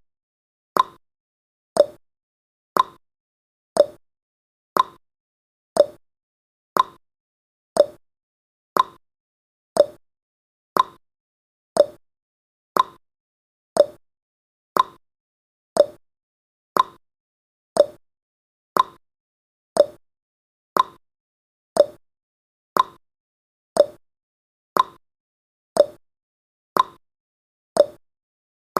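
Countdown timer's clock-tick sound effect, one short sharp tick about every second, keeping time as the timer counts down.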